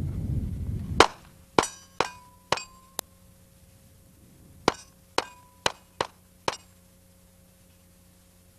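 Pistol fired in two quick strings: five shots about half a second apart, a pause of about a second and a half that fits a reload, then five more shots at the same pace. Some shots are followed by a brief ringing tone.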